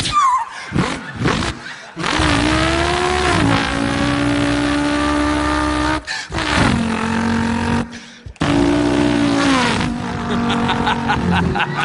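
A man imitating with his voice a V8 Holden Torana's engine revving and running, the pitch rising and falling like revs climbing and dropping through the gears, with short pauses for breath.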